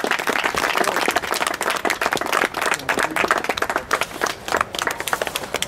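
A small group of people clapping, the claps thinning out near the end.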